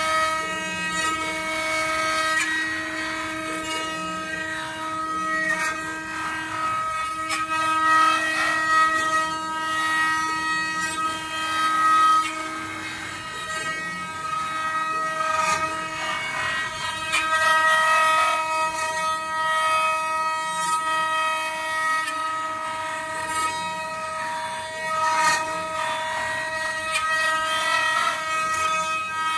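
Several spindles of a multi-head four-axis CNC router whining at a steady pitch as their bits carve blocks of wood turning on rotary axes, with a rough cutting noise that rises and falls.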